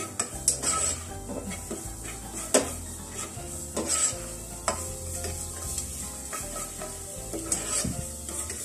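Minced garlic sizzling in hot oil at the bottom of a pot, stirred with a spoon that scrapes and knocks against the pot several times.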